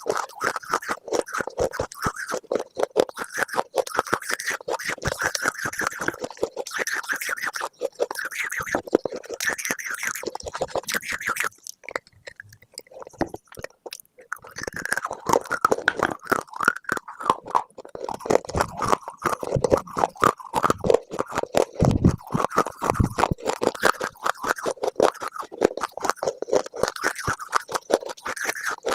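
Close-miked crunching of something brittle: a dense run of crackles and snaps, with a brief lull about halfway through before the crunching resumes.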